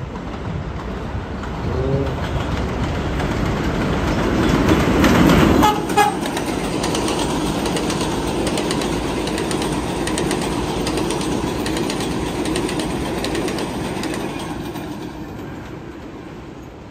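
R62A subway train running on elevated track, a steady rumble with wheels clattering over the rail joints. It is loudest about five seconds in, has a sudden change just before six seconds, and fades near the end.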